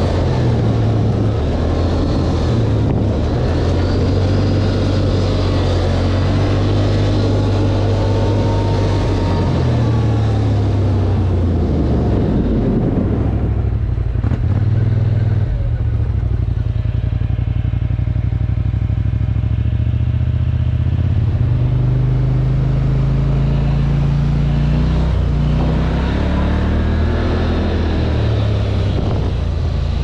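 Polaris ATV engine running while riding, its pitch rising and falling repeatedly as the throttle opens and eases off.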